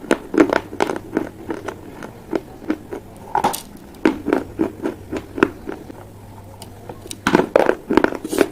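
Close-up crunching and chewing of baked clay pot pieces: irregular sharp, brittle crunches in clusters, thickest near the end.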